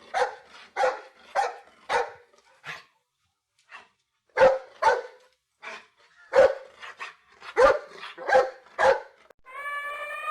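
A dog barking repeatedly in short, separate barks, with a pause of about two seconds in the middle. About a second before the end, a long steady pitched tone begins.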